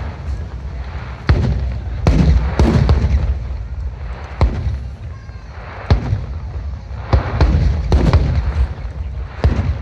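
Aerial fireworks display: a run of loud bangs, several close together, each followed by a deep rumbling echo, with crackle between them.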